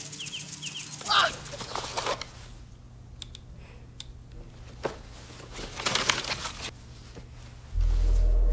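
A cloth backpack being handled and rummaged through: fabric rustling, a few small clicks, and a rasping rustle about six seconds in. A low steady music drone comes in near the end.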